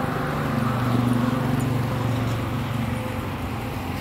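Low engine hum of a motor vehicle on a wet street, swelling about a second in and easing off over the next two seconds.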